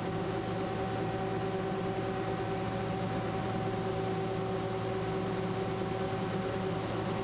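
Steady mechanical hum with a constant hiss, holding two even tones and not changing at all.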